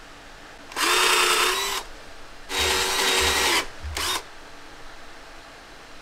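Electric power tool motor running in three bursts: two of about a second each, then a short blip. Each burst holds a steady whine over a hiss.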